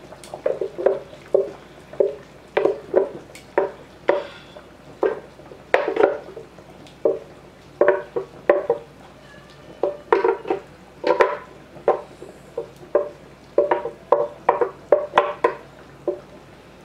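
Thick chili puree being emptied from a Vitamix blender jar into a stockpot of broth: a long run of irregular short plops and knocks, about two a second, as lumps of puree drop into the liquid and the jar bumps the pot.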